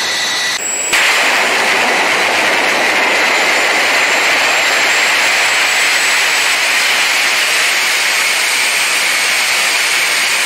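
Homemade turbojet engine running at full power with its afterburner lit: a steady, loud roar with a thin high whine on top that creeps slightly upward. Several abrupt changes in the first second mark quick cuts between engine runs.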